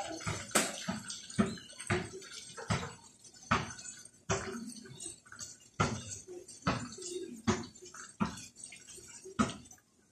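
Chorizo frying in oil in a wok: a steady sizzle broken by sharp, irregular pops of spattering fat, roughly one a second.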